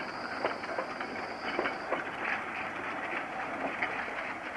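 Narrow-gauge (750 mm) train rolling along the track: a steady rumble with many irregular clicks and knocks from wheels and wagons. A faint high whine fades out about two seconds in.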